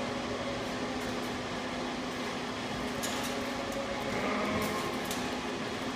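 Steady hum of a large industrial workshop, with a few faint knocks and ticks in the second half.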